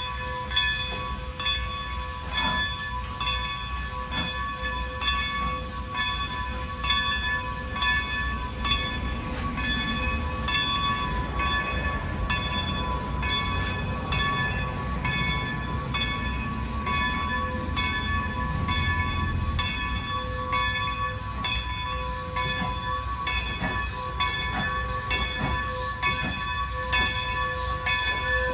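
A railroad bell ringing in steady, evenly repeated strokes over the low rumble of an approaching train, the rumble swelling through the middle. The train is Strasburg Rail Road's No. 90, a 1924 Baldwin 2-10-0 Decapod steam locomotive.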